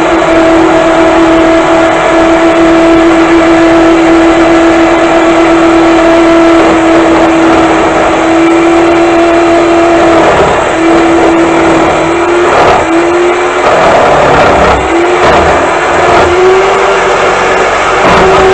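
Single-speed Black & Decker electric drill driving a D-994 lathe attachment, its motor whining steadily while a hardwood blank is turned. From about ten seconds in the whine dips and wavers several times, with rough scraping noise, as the cutting tool loads the motor.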